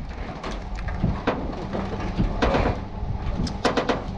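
Irregular metal knocks, clanks and scraping as a steel bar is worked against the dented panels of a wrecked truck cab, over a steady low rumble.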